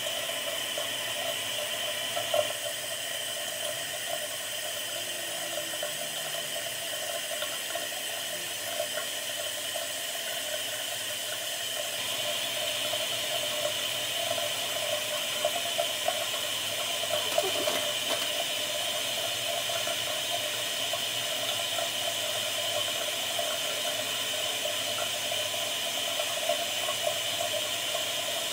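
Water running steadily from a bathroom tap into the sink, with a couple of small knocks.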